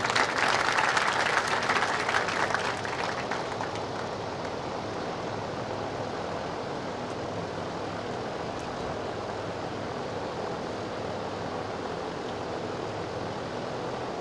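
Audience applauding at the close of a speech, the clapping loudest at first and dying away by about three seconds in, leaving a steady background hiss.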